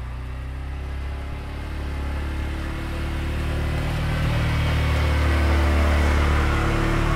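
CFMoto CForce 520 ATV's single-cylinder engine running, its revs and loudness rising over about five seconds and then holding steady.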